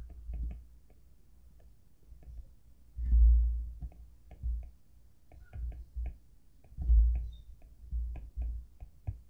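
Stylus tapping and clicking on a tablet screen while handwriting, with dull low bumps from the tablet or desk; the loudest bumps come about three seconds in and again about seven seconds in.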